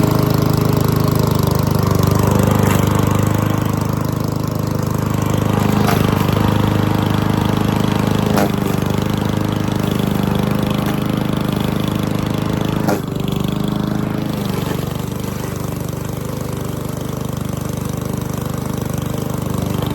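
Gasoline lawn mower engine running steadily, with a few sharp knocks over it, the loudest about thirteen seconds in; the engine drops a little in level just after.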